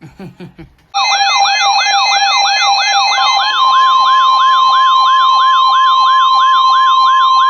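Emergency alert alarm: a loud electronic warble that sweeps up in pitch about three times a second, with steady tones held underneath, starting about a second in.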